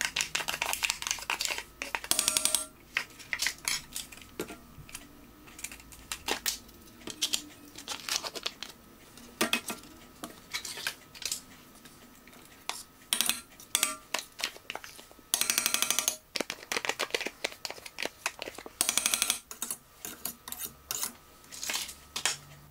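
Cream cheese being spooned out of its plastic tub into a stainless-steel mixer bowl: irregular clicks and scrapes of utensil on tub and bowl, with crinkling of the packaging. A few short rasping scrapes stand out, the longest about two-thirds of the way through.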